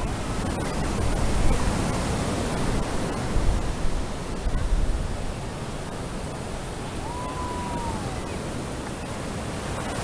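Ocean surf washing in a steady hiss, with gusts of wind buffeting the microphone in the first half.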